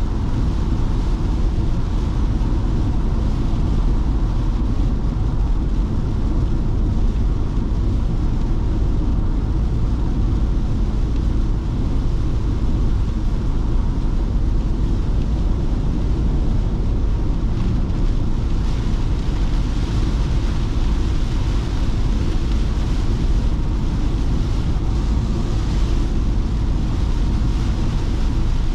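Ford Transit Custom diesel van driving: a steady low road-and-engine rumble with the hiss of heavy rain and wet road, the hiss growing a little stronger for several seconds past the middle.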